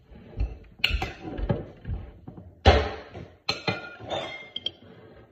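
A spoon clinking and knocking against a glass jar of chili miso while scooping out the sauce, a string of irregular clinks with the loudest knock about two and a half seconds in. A few clinks near the end ring briefly.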